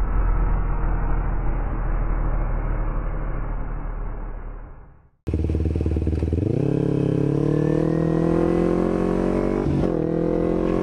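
Sport motorcycle engines heard from the bike. The first runs steadily and fades out about five seconds in. After a sudden break a second one comes in, its pitch rising as it accelerates, with a short dip near the end.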